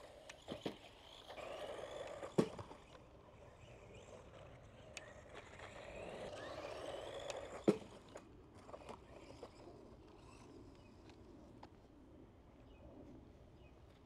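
Small 370 brushed electric motor of a 1:16 RC truck whining as it speeds up, ending in a sharp crash; this happens twice, about two seconds in and again near eight seconds. After that there are only a few light ticks and knocks.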